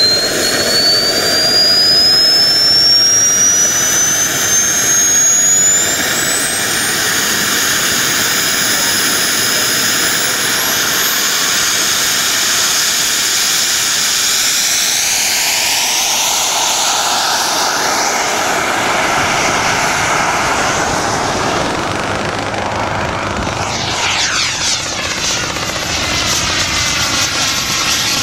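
Model jet turbine mounted on a 50% scale Fox glider, spooling up with a rising whine, then running at high power through the takeoff roll and climb. Near the end its pitch sweeps as the glider flies past.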